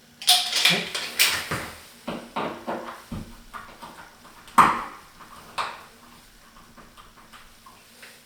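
Metal clicks and clinks of a screwdriver and loose hardware on a towel bar's wall mount as a screw is worked out, a quick run of taps followed by a louder single clank about four and a half seconds in, then fewer, fainter ticks.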